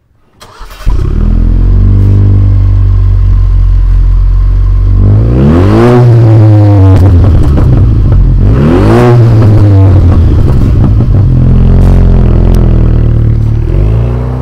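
A 2019 Jeep Cherokee Trailhawk's 2.0-litre turbocharged four-cylinder with the muffler removed, cranked and catching about a second in, then idling loudly. The engine is revved twice around the middle, the pitch rising and falling each time, before it settles back to idle.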